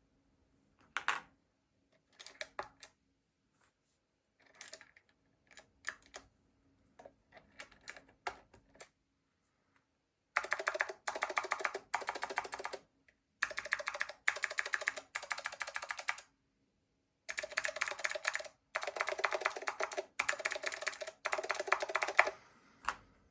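Typing on a Keymacs mechanical keyboard with clicky Blue Alps switches, some keys fitted with Taihao keycaps. Scattered, quiet key clicks at first, then about ten seconds in, several loud runs of fast typing with short pauses between them.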